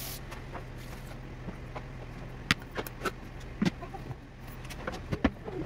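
Several sharp plastic knocks and clicks as the Thermomix's Varoma steaming dish is handled and seated on top of the machine's mixing bowl, the loudest about halfway in, over a steady low hum.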